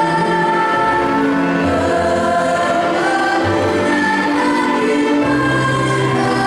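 A school choir singing in parts, long held notes moving from chord to chord.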